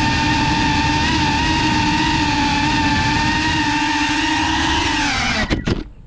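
FPV quadcopter's motors and propellers whining steadily at one pitch, then winding down and cutting off a little before the end, with a couple of knocks as it touches down.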